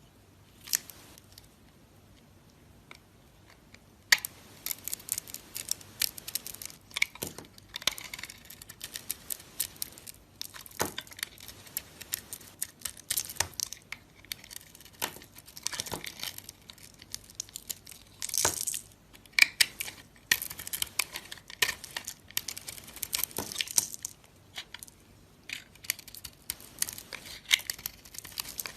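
Soap being cut with a knife: crisp crackling, cracking and scraping, sparse at first and dense from about four seconds in.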